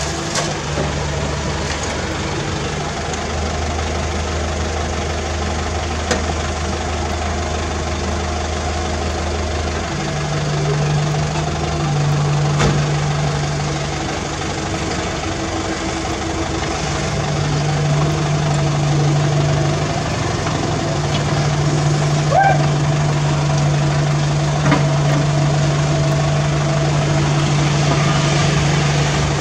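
Diesel engine of a CAT 305E2 mini excavator running steadily as it digs and loads rubble, the pitch of its hum shifting about ten seconds in as the load changes. A few short knocks are heard.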